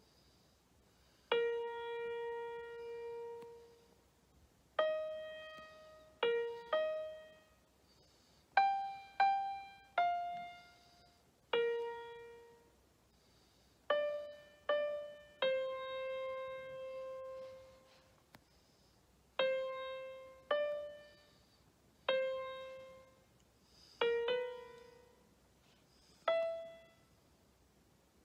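Piano notes from a tablet piano app, pressed one key at a time with the toes: a slow, uneven run of single notes in the middle register, each sounding sharply and fading away, with pauses between them.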